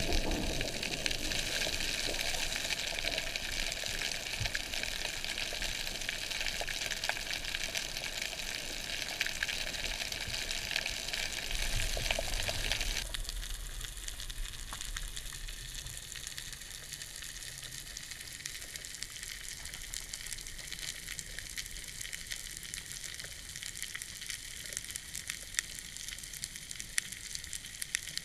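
Dense underwater crackling like frying fat, the snapping-shrimp crackle of a tropical coral reef. It drops quieter and thinner about halfway through.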